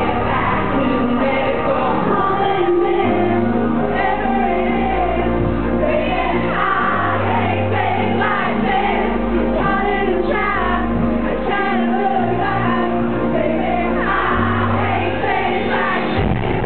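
Live pop song played by a band through a big PA, with a male lead vocal over long held bass notes and chords, recorded from within the crowd with poor, muffled sound. A dance beat comes in just before the end.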